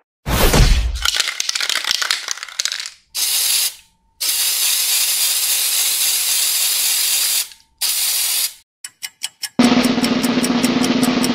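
A low whooshing hit, then an aerosol spray paint can hissing in three bursts: a short one, a long one of about three seconds, and another short one. A quick run of clicks follows, and a snare drum roll starts near the end.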